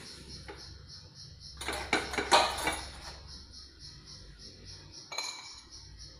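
A metal spoon clinking and scraping against a ceramic plate and bowl as sugar and SP emulsifier are emptied into the mixing bowl. There is a quick cluster of clinks about two seconds in and a single clink about five seconds in.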